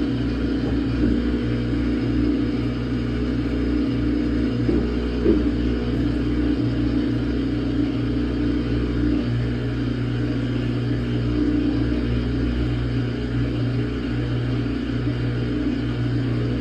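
Samsung top-load washing machine running a quick wash cycle: a steady low rumble and motor hum, with a brief knock about five seconds in.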